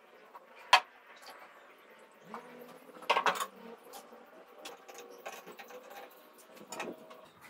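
Sharp clinks of a metal paint can being handled, with a louder clatter about three seconds in as it is set down on a wooden table. Then light, repeated tapping of a metal stirring stick in a plastic cup, mixing sanding sealer with lacquer thinner.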